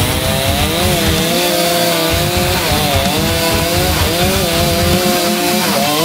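Chainsaw running in a hickory tree, its engine pitch sagging and recovering every second or so as it works through the wood.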